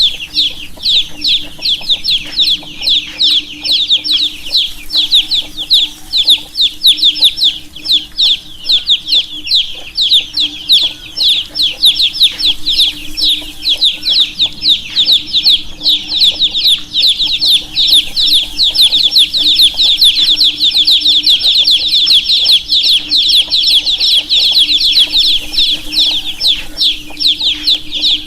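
A group of baby chicks peeping continuously, many short high, falling chirps overlapping one another, with a faint steady hum beneath.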